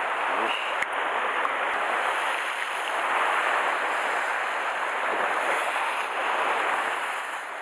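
Sea surf washing against a rocky shore: a steady, fairly loud hiss of breaking waves that swells and eases slightly.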